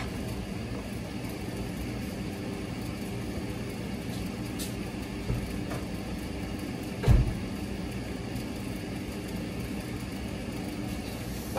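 Steady low hum of an idling engine, with a sharp knock about seven seconds in and a fainter one a couple of seconds earlier.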